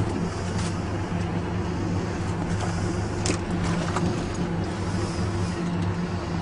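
A boat's engine running steadily with an even low hum, and a few faint clicks over it.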